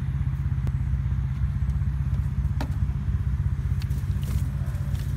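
A vehicle engine idling steadily, a low even rumble with a fast pulse.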